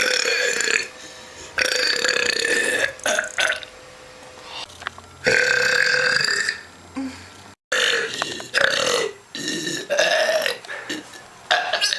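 A woman belching: three long, drawn-out belches of about a second each in the first seven seconds, then a run of shorter burps toward the end.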